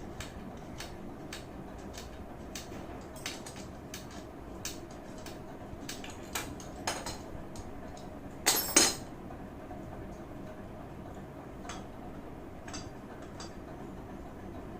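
Metal tools and clutch parts clinking as they are handled: a scatter of light clicks, with a louder clatter a little past halfway.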